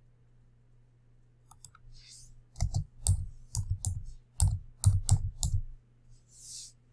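Computer keyboard typing: a quick, uneven run of about a dozen key clicks as a search query is typed, starting about a second and a half in. A faint steady electrical hum runs underneath.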